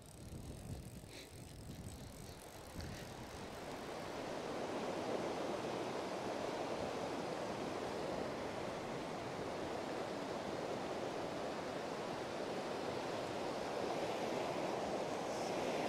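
Fast-flowing river water rushing through a shallow, foamy run. It comes up a few seconds in to a steady rush.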